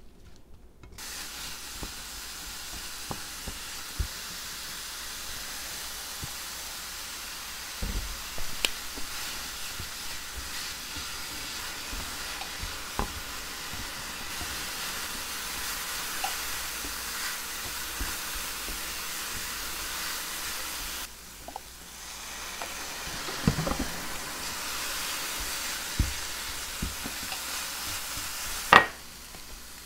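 Chopped apples sizzling in a frying pan as they are stir-fried to cook off their moisture, with a spatula tapping and scraping the pan now and then. The sizzle breaks off for a moment about two-thirds of the way through and stops near the end with a sharp knock.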